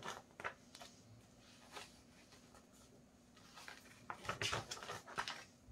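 Paper pages of a picture book being turned and rustled by hand, in a few short rustles, busiest from about four to five seconds in.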